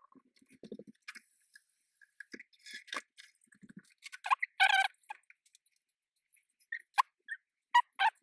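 Scattered small clicks and taps of soldering work, as motor wires are soldered onto the pads of a drone's flight controller board, with a brief louder squeak about four and a half seconds in and sharp clicks near the end.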